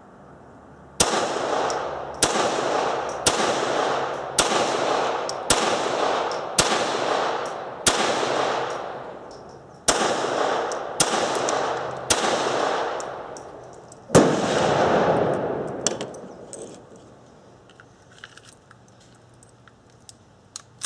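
Semi-automatic pistol fired about eleven times at a steady pace of roughly one shot a second, with two brief pauses, each report trailing off in a long echo. The shots stop about two-thirds of the way through, followed by a few faint clicks near the end.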